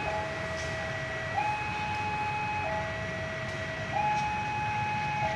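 Electronic two-tone warning alarm switching back and forth between a lower and a higher note about every 1.3 seconds, over a steady low rumble of traffic and railway.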